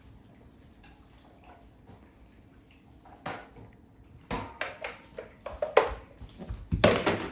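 Plastic clicks, knocks and rattles of a robot vacuum's dustbin being handled and emptied. The sounds start about three seconds in and grow busier and louder toward the end.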